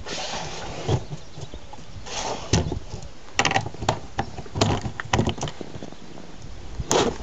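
A small metal barrel bolt on a homemade dog box door being slid and clicked, among knocks and rattles as the box door and panels are handled.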